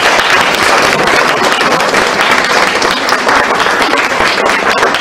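Audience applauding, many hands clapping together in a steady patter that tails off near the end.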